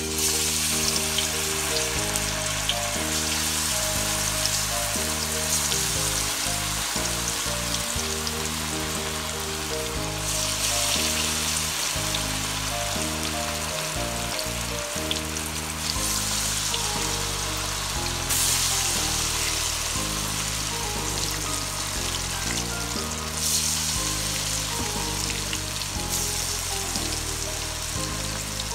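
Marinated fish pieces deep-frying in hot oil in a kadhai: a loud, dense sizzle that starts suddenly as the fish goes into the oil and swells louder several times. Background music with low, stepping notes plays underneath.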